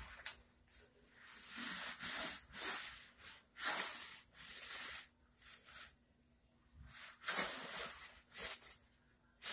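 Fabric and soft restraint straps rustling in short, irregular bursts of hissy noise as the restrained wrists twist and pull.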